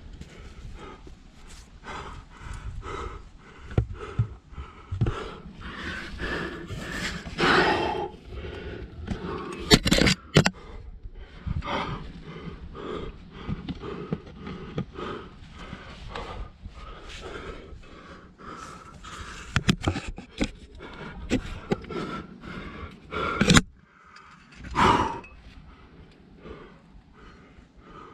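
A rock climber breathing hard with exertion while working up a chimney, with occasional sharper knocks and scrapes against the rock.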